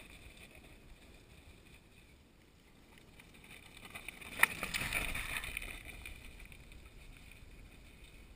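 A mountain bike rolling past over loose rocky ground, tyres crunching on stones. A sharp clack comes as it goes by, about four and a half seconds in, and the noise then fades away.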